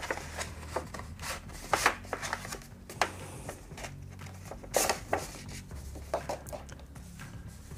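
Paper handling: a kraft-paper envelope being opened and paper sheets slid out of it, with scattered short rustles, crinkles and scrapes, the sharpest a little under two seconds in and about five seconds in.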